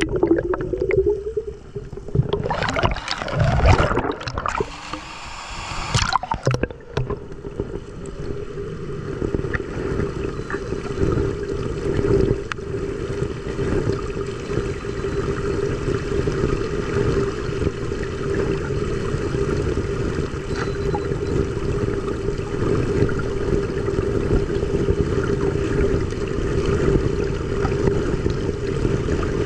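Water splashing and gurgling loudly for a few seconds, then a steady rush of water with a constant low hum running under it.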